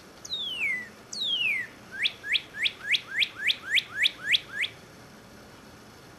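Male northern cardinal singing one phrase: two long falling whistles, then about ten quick rising notes that stop a little before five seconds in.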